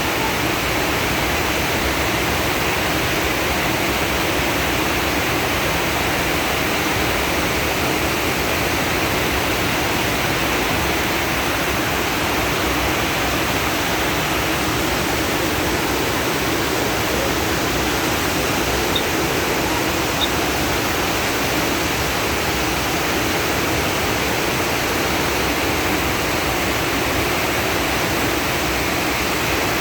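Steady, unbroken rush of water, with no surges or let-ups.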